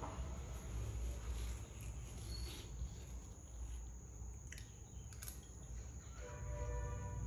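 A metal spoon scooping watermelon flesh, with a few faint clicks from the spoon against the melon, over a steady low hum. A short hummed 'mm' comes near the end while the person chews.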